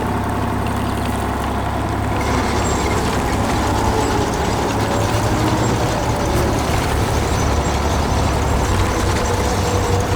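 Heavy construction-machine diesel engine running steadily with a deep rumble, growing fuller and noisier about two seconds in.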